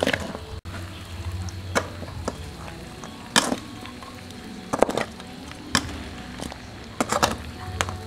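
A metal spatula scraping and clacking against a steel wok while stir-frying crocodile tail meat: irregular sharp strikes about once a second over a low steady hum.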